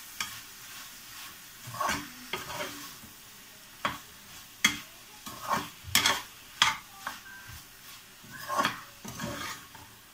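Spatula stirring mushroom masala in a metal pressure cooker, with irregular scrapes and knocks against the pot over a faint sizzle of frying.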